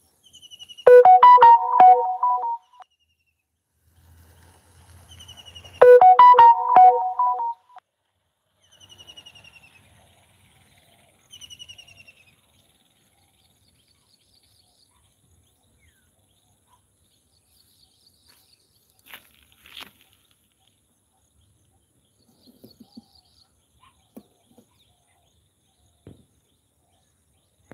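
Two loud, short tuned phrases of a few notes each, about five seconds apart. Birds give short falling chirps around and between them.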